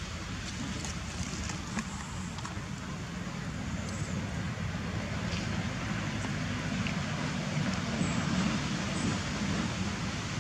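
Steady low rumbling background noise with a hiss and a few faint high ticks, growing a little louder in the second half.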